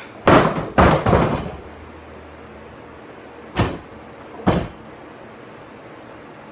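Loaded barbell dropped onto wooden lifting blocks: two heavy impacts about half a second apart, the second trailing off in a short ringing rattle. A few seconds later come two lighter knocks about a second apart.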